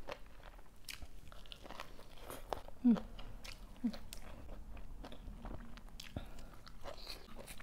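Close-miked chewing and wet mouth clicks of someone eating sticky rice and pickled bamboo shoots by hand, with two brief hums near the middle.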